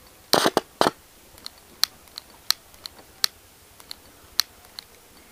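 Handheld spark gas lighter clicking repeatedly, about two sharp clicks a second, with a brief cluster of louder knocks near the start. The sparks fail to light the acetylene from calcium carbide and water at the tube tip, which has too much air mixed in.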